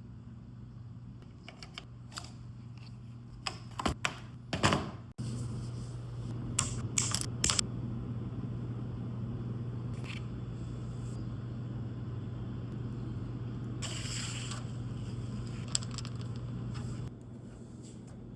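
Clicks and handling knocks, then a steady low electrical hum that switches on about five seconds in and cuts off near the end, with a few clicks and a short hiss while it runs.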